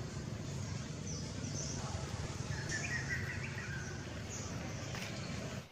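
Steady low background rumble with a few short, high bird chirps scattered through it, and a brighter run of chirps about three seconds in.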